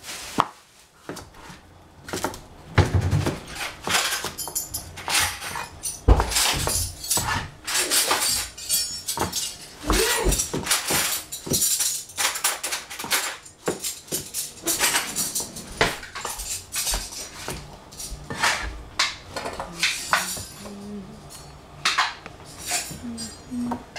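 Chinese cleaver cutting zucchini on a plastic cutting board: irregular runs of sharp knocks as the blade strikes the board, with short pauses between cuts.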